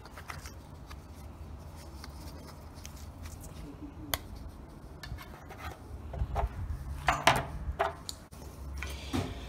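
Rubbing and faint crinkling of PTFE (Teflon) thread-seal tape being stretched and wound onto the threads of a new water-heater anode rod, with louder rustles of the tape near the end.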